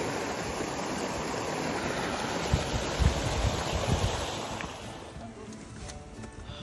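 Small stream running fast over stones, a steady rush of water with a few low thumps in the middle; it falls away about five seconds in.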